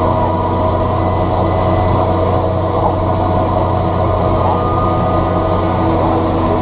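John Deere 7710 tractor's six-cylinder turbo-diesel engine running at a steady speed, without revving up or down.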